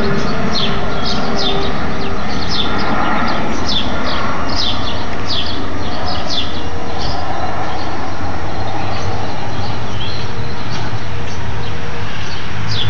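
Steady rumble of an Airbus A320-232's IAE V2500 jet engines as the airliner passes overhead on approach. Birds chirp over it in quick falling chirps, many in the first half and only a few later.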